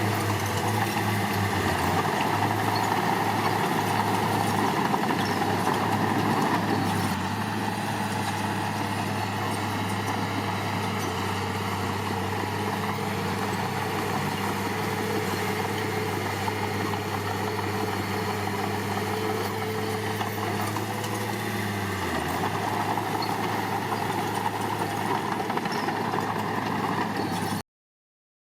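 Heavy earthmoving machine's diesel engine running steadily, a little quieter from about seven seconds in, with a brief dip in pitch near the end. It then cuts off suddenly.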